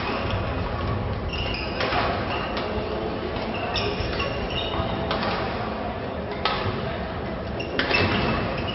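Badminton rackets striking a shuttlecock, a few sharp hits spaced a second or more apart, with short high squeaks of court shoes on the wooden floor and voices in a large, echoing sports hall.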